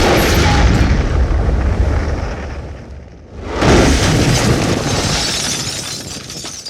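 Explosion sound effect: a sudden blast with a deep rumble that fades over about three seconds, then a second blast about three and a half seconds in, with crackling debris, dying away near the end.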